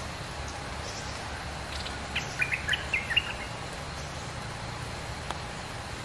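A bulbul sings one short phrase of quick, chirpy notes about two seconds in, over a steady hiss of falling rain. A single tick sounds near the end.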